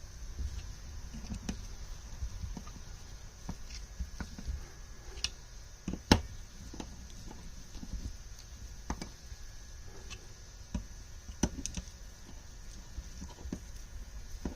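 Scattered light clicks and taps of hand tools and small metal parts being worked on a Mikuni carburetor rack, with a sharper knock about six seconds in.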